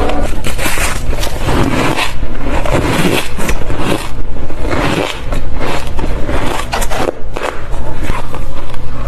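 Close-up crunching and squeaking of fluffy ice being bitten and chewed, one dense crackly bite after another.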